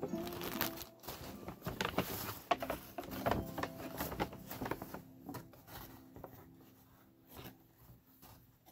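Paper shopping bag rustling and crinkling as hands dig into it and pull items out, busiest in the first half and quieter handling near the end.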